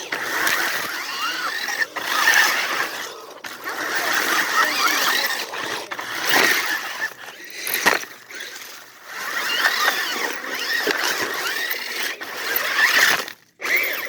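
Electric motors and gearboxes of radio-controlled toy vehicles whining, the pitch rising and falling with the throttle, over a gritty rattling noise. The sound cuts out briefly near the end.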